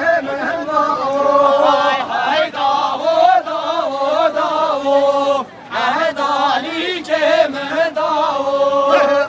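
A single voice singing a Kurdish dance song with no instruments, in long held notes with wavering ornamented turns, and a short break for breath about five and a half seconds in.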